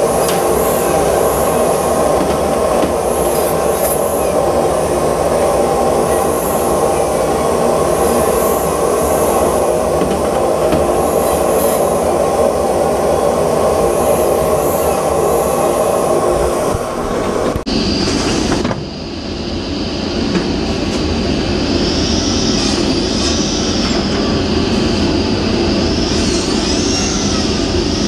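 Industrial saw machine and its roller conveyor running, a loud steady mechanical din. About two-thirds of the way in, the sound cuts abruptly to a different texture with a high whine that wavers in pitch.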